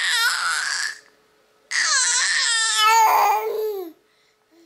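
Baby babbling in high-pitched vocal sounds: one run ends about a second in, then after a short pause a longer one lasts about two seconds, its pitch dropping at the end.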